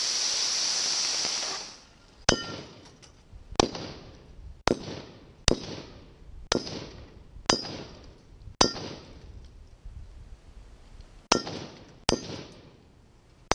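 AR-15 rifle shots striking a sheet-metal box, each a sharp crack with a metallic clang and short ring; about ten shots, roughly one a second, with a pause of a couple of seconds near the end. A loud hissing rush runs through the first two seconds before the shots.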